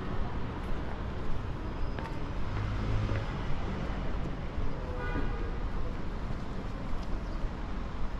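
City street ambience heard while walking: a steady low rumble of traffic and urban background noise, with scattered voices of passers-by.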